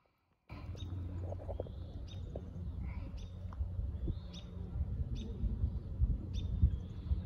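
A bird chirping over and over, a short high call about once a second, over a gusty low rumble of wind on the microphone; the sound starts about half a second in.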